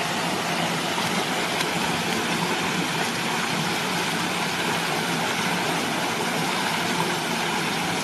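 Steady rushing of a small waterfall pouring into a rock pool, an even unbroken hiss.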